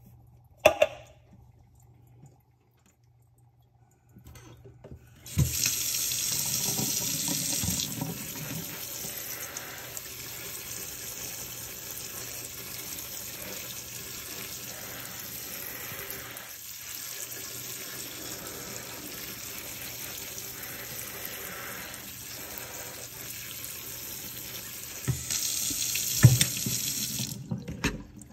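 Water from a kitchen sink sprayer running onto canned black beans in a plastic colander in a stainless steel sink, rinsing them. The water comes on about five seconds in and cuts off near the end, louder at its start and again near the end. A short sharp clatter comes about a second in, and a knock near the end.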